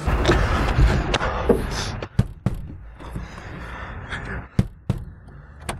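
A car door being handled: several sharp clicks and knocks, after a rush of noise in the first two seconds.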